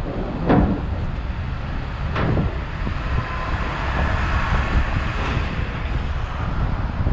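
Steady rumble of road traffic with wind on the microphone, and two short louder swells about half a second and two seconds in.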